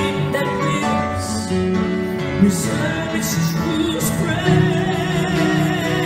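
Live hymn performance: a male vocalist singing into a handheld microphone over choir and instrumental accompaniment, holding a long note with vibrato from about four seconds in.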